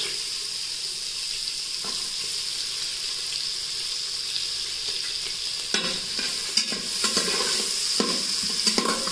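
Chopped onions sizzling in melted butter in the stainless-steel inner pot of an electric pressure cooker. From a little under six seconds in, a spatula scrapes and taps against the pot as they are stirred.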